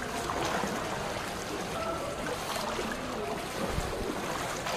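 Floodwater in a street, a steady rush and slosh of moving water.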